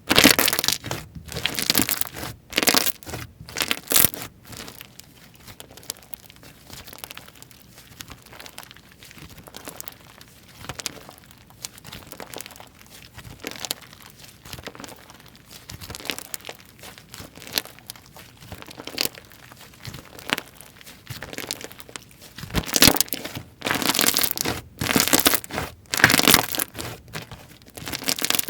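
Slime being squished, stretched and pressed by hand, giving wet crackling clicks and pops. The clicking comes in dense runs at the start and again from a little past the middle to the end, with quieter, sparser pokes in between.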